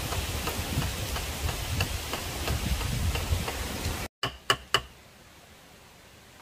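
Wind rumbling on the microphone with faint scattered ticks, cut off abruptly about four seconds in; then three sharp clicks in quick succession and a low steady hiss.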